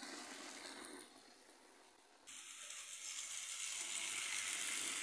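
Model train running along the track, a small motor and wheels making a steady mechanical whirr and rattle. The sound changes abruptly a little over two seconds in and then grows louder, with a more hissing character.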